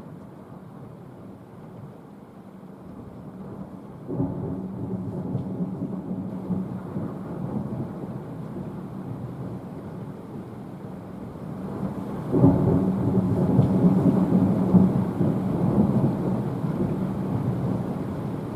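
Thunder: a sudden peal about four seconds in that rolls on, then a louder clap about twelve seconds in that rumbles and slowly dies away.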